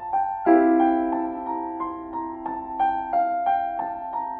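Piano music: a melody of separate struck notes over a fuller low chord that comes in about half a second in.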